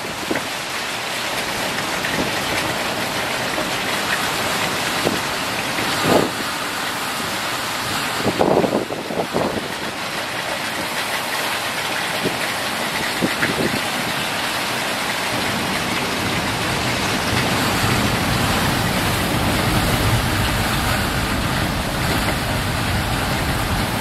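Typhoon storm: wind-driven heavy rain and gusting wind in a steady rush of noise, with a few sharp knocks in the first half. In the second half strong gusts add a deep rumble.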